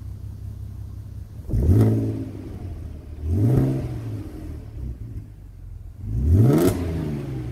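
2008 Audi TT 3.2 Quattro's V6 through a non-resonated Milltek cat-back exhaust, idling and revved three times, each rev rising in pitch and dropping back to idle; the third rev is the longest.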